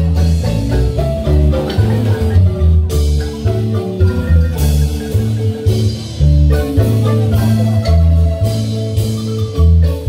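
Live marimba band playing dance music: marimba notes over a strong, steady bass line with light percussion.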